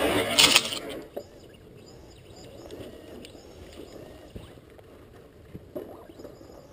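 Brushless Traxxas Slash 4x4 VXL RC truck speeding close past the camera, its tyres spraying sand and dirt, loudest in the first second. It then fades to a faint sound as the truck drives off into the distance.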